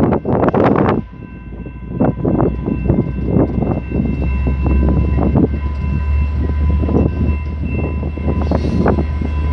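Diesel commuter train approaching, its locomotive's low rumble building. A steady high tone runs over it, and gusts of wind buffet the microphone, loudest in the first second.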